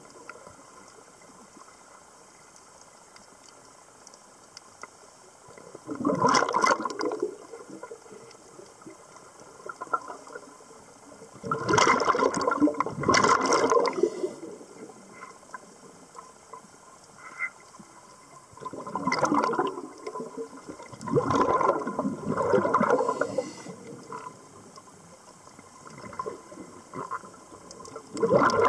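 Underwater rush and gurgle of a scuba regulator's exhaust bubbles as the diver breathes out, in bursts of about a second. There are seven bursts, with quiet stretches of a few seconds between them.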